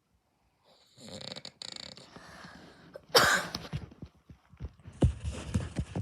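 A man snoring, with irregular rasping breaths and a sharp, loud noisy breath about three seconds in. The sound starts after about a second of silence.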